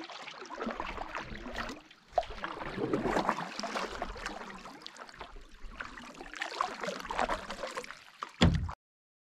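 A canoe being paddled: paddle strokes swishing and splashing in the water, with a knock about two seconds in and a louder thump near the end before the sound cuts off suddenly.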